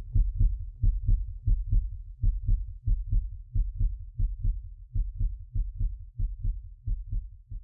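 A low bass pulse like a heartbeat, repeating about three to four times a second and growing fainter towards the end, as the closing music fades out.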